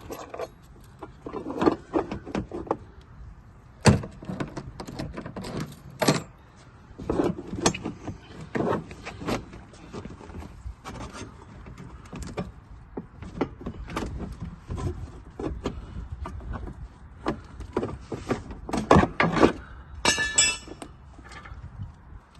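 Irregular metallic clanks, knocks and rattles of hands-on work on travel-trailer hardware, with a brief squeal near the end.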